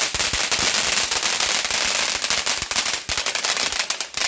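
Ground fountain firework going off: a continuous spraying hiss packed with rapid crackles and pops.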